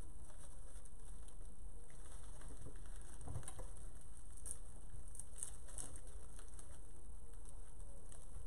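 Light rustling and crackling of artificial flower stems and silk foliage being pushed into a floral arrangement, in scattered small bursts over a steady low background rumble and hiss.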